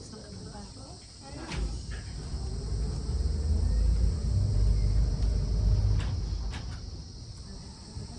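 Steady high-pitched drone of rainforest insects. From about a second and a half in to about seven seconds, a louder low rumble rises and fades under it, with a few faint clicks.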